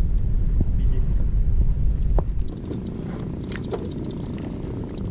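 Low, steady rumble of a small motorboat underway, mixed with wind buffeting the microphone. It drops noticeably quieter about two and a half seconds in, with a few faint knocks.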